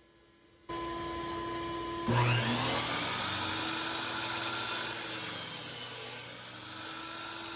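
A shop vacuum starts running steadily about a second in. About two seconds in, a DeWalt compound miter saw's motor spins up with a rising whine, runs at full speed for about four seconds, and winds down with a falling pitch near the end once the trigger is released.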